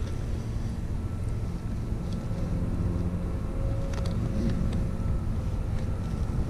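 Steady low wind rumble on the microphone, with a faint steady hum under it and a light click about four seconds in.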